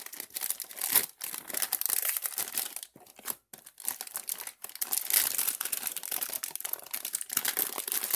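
Clear plastic wrap being torn and peeled off a cardboard box and crumpled in the hands, crinkling and crackling with many small snaps, pausing briefly about three seconds in.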